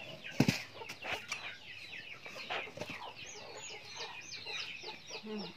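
Backyard chickens clucking, with a run of quick, high, falling peeps in the second half and a sharp knock about half a second in.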